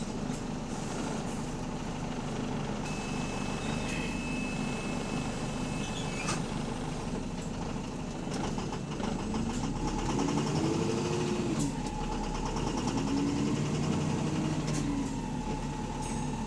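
Bus engine running with a knocking that the uploader takes for rod knock, a worn connecting-rod bearing. The engine note rises and falls twice in the second half as the bus pulls away.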